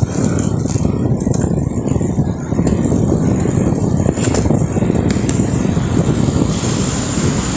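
Heavy wind rumble on the microphone from riding along a road, with car traffic running underneath.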